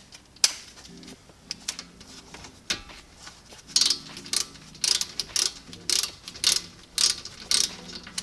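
Ratchet wrench clicking as it turns a brake caliper bolt. There are a few scattered clicks at first, then a steady run of ratcheting strokes, about two a second, from about halfway through.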